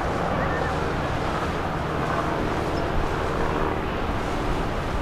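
Cabin cruiser's engines running steadily as the boat cruises past, a constant drone mixed with the wash of water along the hull.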